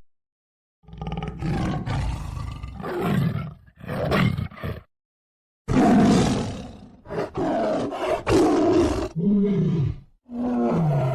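Tiger roaring and growling in a series of calls separated by short silent gaps. The loudest roar starts about six seconds in, and falling-pitch growls come near the end.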